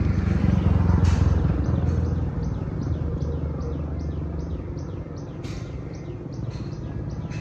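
A bird chirping over and over, a few short falling chirps a second, over a low steady rumble that fades off through the first half.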